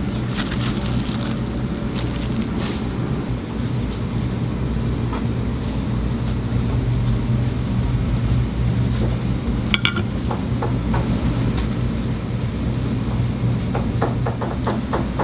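A steady low mechanical hum of kitchen machinery. A short ringing clink comes about ten seconds in, and light taps follow near the end.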